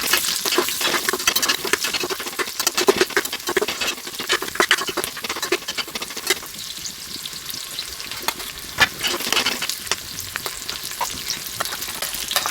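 Onions frying in hot oil with whole spices in a pan, sizzling and crackling as they are stirred, with sharp clicks and scrapes of the stirring spoon against the pan. The sizzle is busiest in the first half and settles to a thinner crackle later.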